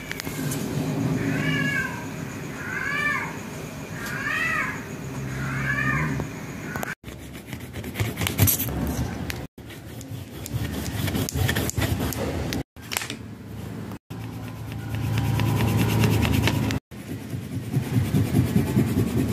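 Four drawn-out, meow-like animal cries, each rising and falling in pitch, about a second and a half apart, over a low steady hum. Then wax crayons scribble and rub on paper in quick scratchy strokes, in several short stretches that stop abruptly.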